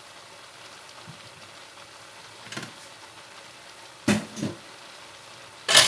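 Kitchen clatter: short knocks and clinks of utensils, two close together about four seconds in and a louder one near the end.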